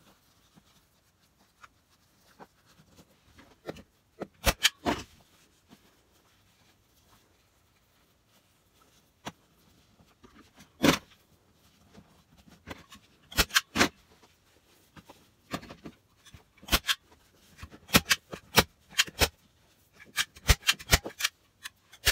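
A run of sharp, irregular clicks, some in quick clusters of two or three, from hand tools working the fabric-covered board.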